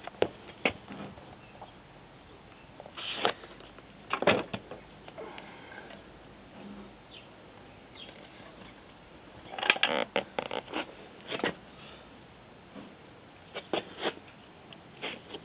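Handling noise: irregular clicks, taps and rustles in several short clusters, over a faint steady hiss.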